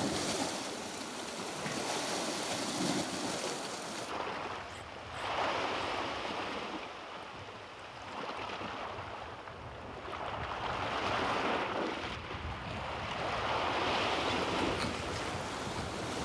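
Sea waves washing against shore rocks, the surf swelling and ebbing every few seconds.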